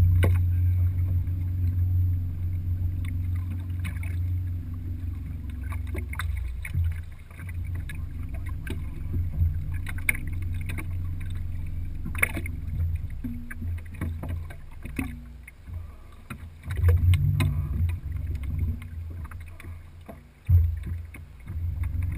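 A steady low rumble aboard a bass boat, with scattered clicks and knocks. The rumble drops away briefly several times in the second half.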